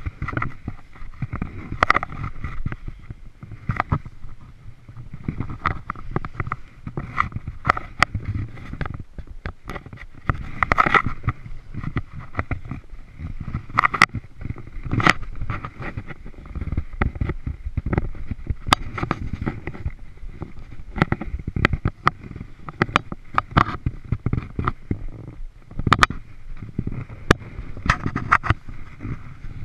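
Hiker's boots and knees crunching and kicking into deep snow on a steep climb, with clothing rubbing against a chest-mounted camera: irregular scuffs and knocks over a low rumble.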